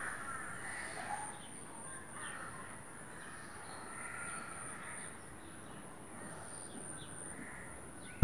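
Crows cawing now and then over faint outdoor background noise, with a steady, thin high-pitched whine underneath.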